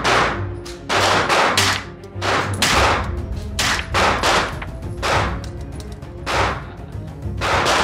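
Semi-automatic Thompson carbine in .45 ACP firing a string of single shots, about one to two a second at uneven spacing. Each shot is a sharp report with echo off the walls of an indoor range.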